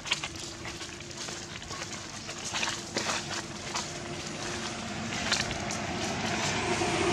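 Dry leaves crackling and rustling in quick irregular clicks as monkeys move over the leaf litter, over a steady low hum that grows louder near the end.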